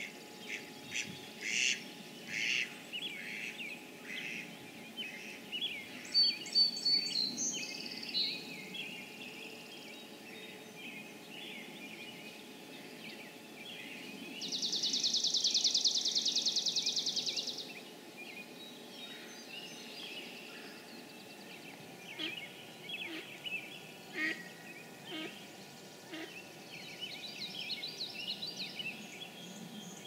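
A spring marsh chorus of mixed songbirds calling and singing, with short notes and phrases all through. The loudest is a high, rapid, dry trill lasting about three seconds about halfway through, a chipping sparrow's song.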